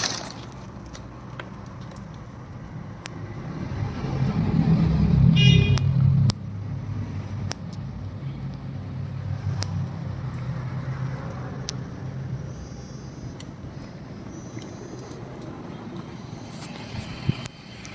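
A vehicle engine running, swelling louder from about four seconds in and dropping off suddenly a couple of seconds later, then running on more quietly, with scattered sharp clicks.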